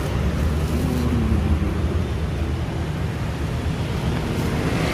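Steady low rumble of roadside traffic noise, with no distinct events standing out.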